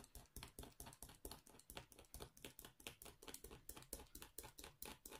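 Craft knife blade scoring through paper into a diamond painting canvas in quick short strokes, about five or six faint scratchy ticks a second. The scoring cuts little slits so trapped air can escape from a bubble or crease in the canvas.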